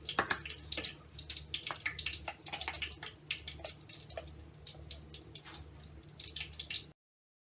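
Spoon clinking and scraping in a bowl, mixing sugar and cinnamon: a run of irregular light clicks over a faint low hum. The sound cuts off abruptly near the end.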